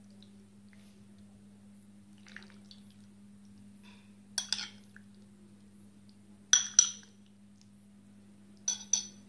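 Metal spoon clinking against glass bowls as jelly cubes are scooped and dropped onto a trifle: a few light clinks, the loudest a quick pair about two-thirds of the way in, over a steady low hum.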